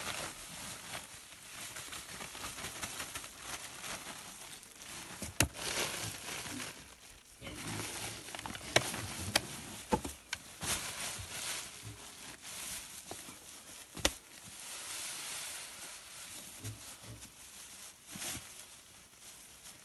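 Woven plastic feed sacks rustling as dry feed meal (corn grits, wheat flour, soybean meal) is poured from them into a plastic trough, a steady hiss and rustle with a few sharp clicks and knocks along the way.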